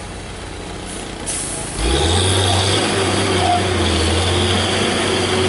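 Heavy truck's diesel engine running under load. It jumps in loudness about two seconds in and settles into a steady low drone with a higher whine on top.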